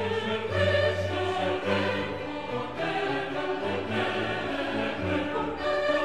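Background music: choral singing with orchestra, sustained notes throughout.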